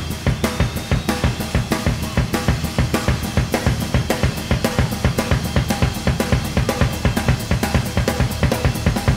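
Rock drum kit played solo: a fast, driving run of strokes on the toms and bass drum, about five or six a second, with cymbals and snare mixed in.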